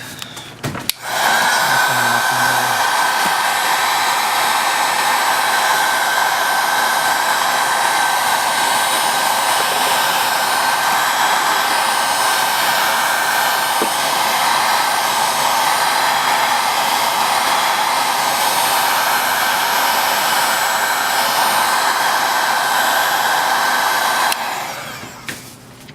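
Handheld hot-air blower running steadily, heating a phone's glued-on back glass to soften the adhesive. It switches on about a second in and cuts off near the end, a steady rush of air with a thin whine over it.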